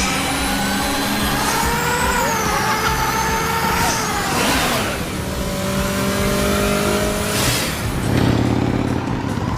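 Vehicle engines revving, several pitched engine hums at once, with a falling-pitch pass-by about four to five seconds in and brief whooshes.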